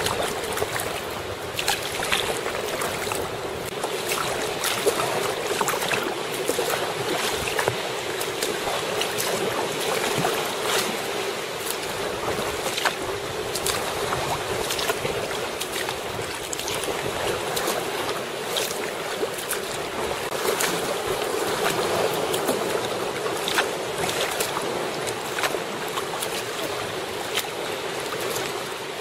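Choppy sea water splashing and slapping against a moving sea kayak, a steady rush with frequent small, sharp splashes.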